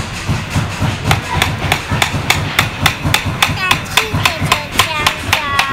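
Small hammer driving nails into a child's wooden craft-box kit, rapid steady blows about four a second. From about three and a half seconds in, each blow rings with a short metallic tone.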